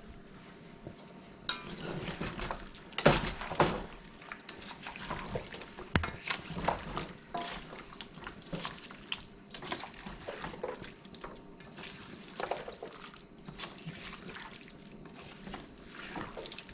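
Kitchen work sounds: irregular clinks and knocks of pots and utensils, with splashing liquid.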